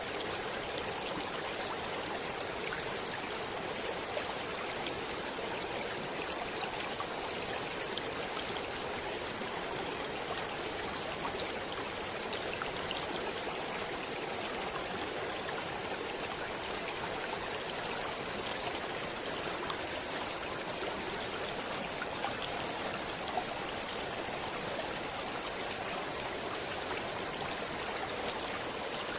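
Flowing stream water: a steady rushing and babbling with many small splashes and trickles.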